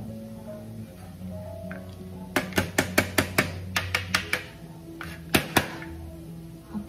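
Flat plastic-framed grater tapped against a plastic cutting board in a quick run of about ten sharp knocks, then two more a second later, knocking grated carrot off the blade. Background music plays throughout.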